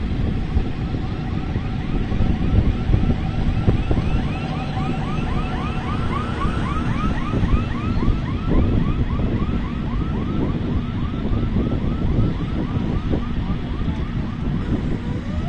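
Wind buffeting the microphone over the distant running of Leeboy 985 motor graders' diesel engines. Through most of it a rapid string of short chirping tones repeats about three times a second, fading out near the end.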